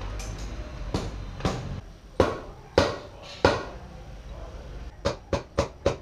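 Knocks as a TRS aftermarket motorcycle exhaust is forced onto its pipe over a tight-fitting gasket: five spaced knocks, then a quicker run of about four a second near the end.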